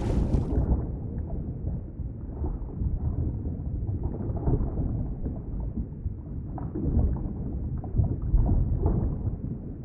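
Underwater ambience: a muffled, low rumbling wash of water with faint scattered bubbly ticks. A brighter hiss cuts off about half a second in, leaving only the muffled sound.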